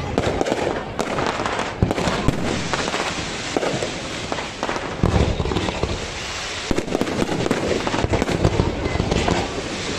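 A fireworks display going off: a continuous rattle of crackling bursts and pops, with deeper booms about halfway through.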